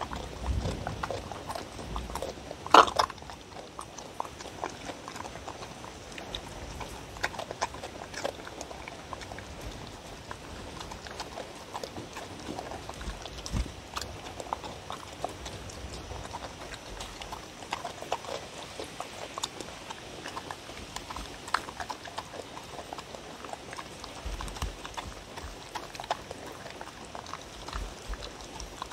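A dog eating chopped fruit, vegetables and meat from a wooden bowl: irregular chewing and smacking, with small clicks of teeth and tongue against the bowl and one louder knock about three seconds in.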